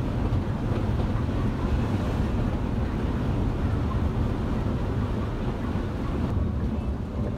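Steady drone of a Scania K360 IB coach on the move, engine and road noise heard inside the cabin, with a wind-like hiss over it. The higher hiss drops away about six seconds in.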